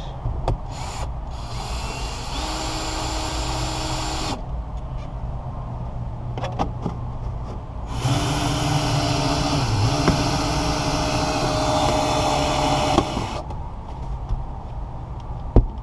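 Ryobi cordless drill driving a windshield wire-out winder, reeling cutting wire through the glass's urethane bead. It runs twice with a steady whine: a run of about three seconds, then a longer run of about five seconds.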